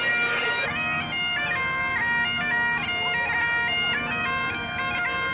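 Great Highland bagpipe played solo: a tune of stepping notes over the steady drones.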